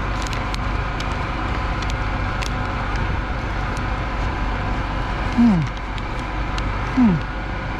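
A man biting into and chewing a large paper-wrapped food, with faint crinkles of the paper wrapper, over a steady low mechanical hum. Twice, about five and seven seconds in, he lets out a short falling 'mmm' of enjoyment.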